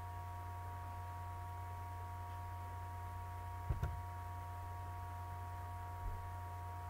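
Steady electrical hum with faint, steady high-pitched whining tones over it, the background noise of the recording setup; a single soft knock just under four seconds in.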